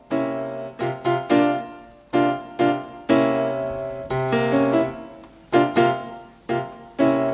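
Piano chords played on a keyboard over a low C held in the bass: a series of struck voicings, some in quick pairs, demonstrating a B♭ triad over C moving to B♭, D♭ and E, a C7♭9 resolution.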